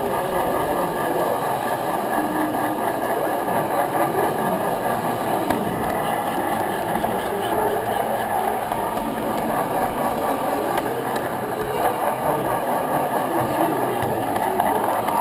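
Steady rolling rumble and motor whir of a large-scale electric model train, heard from a camera riding on the train as its wheels run over the rail joints.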